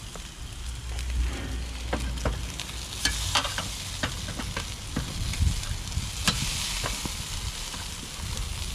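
Pieces of meat sizzling on a hot grill grate, with scattered clicks of metal tongs against the grate as they are turned.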